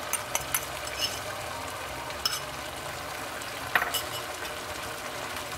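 Pan of mashed tofu, shrimp and thickened chicken broth cooking on the stove with a steady sizzling hiss as beaten eggs go in. A few light taps in the first second, and a sharper knock about four seconds in.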